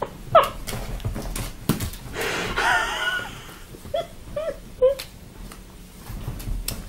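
A cat chasing its tail on a sofa, giving a few short whining cries: one near the start, a wavering one around the middle, then three quick ones in a row, with soft knocks from its scrabbling on the cushions.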